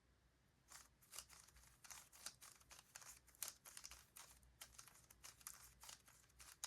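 Faint, quick clicking and clacking of a Rubik's cube's plastic layers being turned over and over, starting about a second in, as a corner algorithm is repeated.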